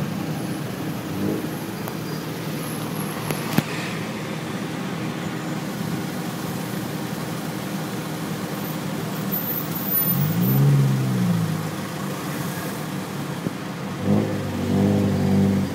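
Tuk tuk engine running in slow traffic, revving up and back down about ten seconds in and again near the end. A sharp click about three and a half seconds in.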